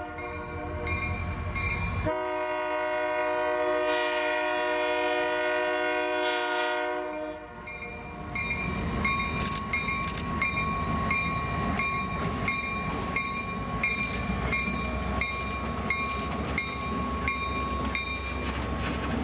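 Diesel locomotive air horn sounding, first a short blast and then one long blast of about five seconds. The train then rumbles past while a bell rings at an even pace, about twice a second.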